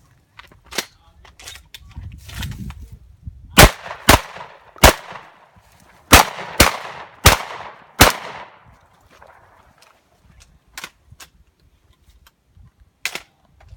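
Seven shotgun shots fired in quick succession, a group of three about half a second apart and then, after a short pause, a group of four, each shot followed by a brief echo. Fainter sharp reports or clicks come before and after the shots.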